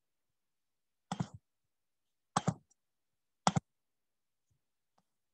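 Three sharp clicks of a computer being operated, about a second apart, each a quick double snap like a button pressed and released. Much fainter ticks follow near the end.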